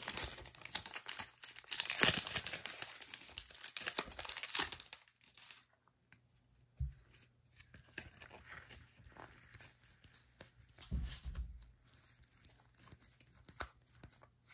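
Foil trading-card pack wrapper crinkling and tearing as cards are pulled out, dense and crackly for about the first five seconds. After that come the much quieter rustle and slide of a stack of cards being handled, with a couple of soft low thumps.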